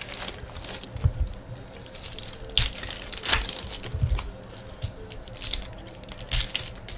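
Foil trading-card pack wrappers crinkling and tearing as packs are opened by hand and the cards slid out, in irregular sharp crackles with a few dull knocks.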